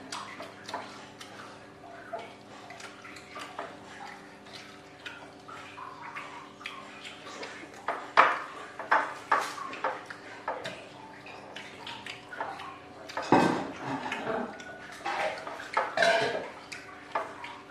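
Plates and utensils clinking and clattering irregularly as people eat at a table, with a few sharper knocks, over a faint steady hum.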